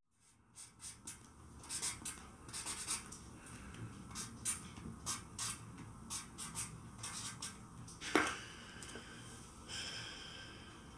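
Felt-tip marker pen scratching across a card in many quick short strokes as words are written, then the card handled with one brief swish about eight seconds in.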